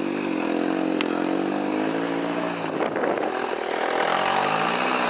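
Lifted off-road SUV's engine revving under load as it crawls up a steep rocky slope, its pitch rising and falling with the throttle.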